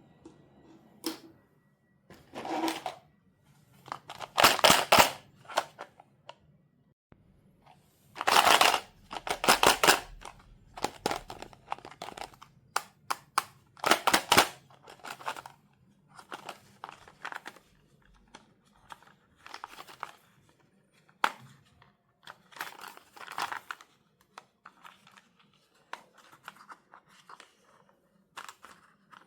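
Doll packaging being handled and opened: irregular rustling, crinkling and tearing of plastic and cardboard, with sharp clicks and snaps, the loudest bursts about four, nine and fourteen seconds in.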